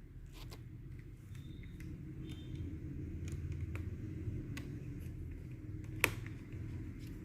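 Small clicks and taps of hands and a screwdriver working on laptop internals while an M.2 SSD is being fitted, with one sharper click about six seconds in, over a steady low hum.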